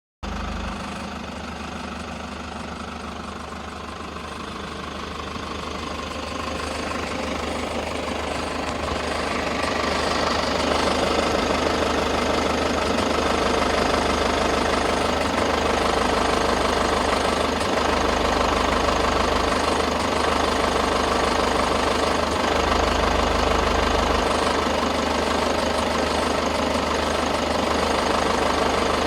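Toyota HiAce KDH206V's 1KD-FTV turbo-diesel idling with its usual diesel clatter, mixed with an irregular light 'shari-shari' rattle like a washer shaken on a bolt. The rattle is said to come from idle hunting, the intake air and fuel amounts surging back and forth, with sludge in the EGR valve, intake manifold or throttle valve a likely cause. It grows louder over the first ten seconds or so, then holds steady.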